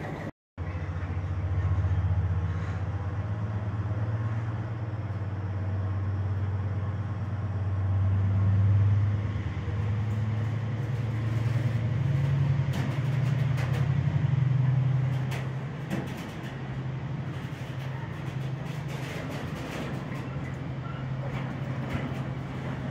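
Container freight train's wagons rolling past close by: a steady low rumble with scattered wheel clicks over the rail joints in the second half. The sound drops out for a moment near the start.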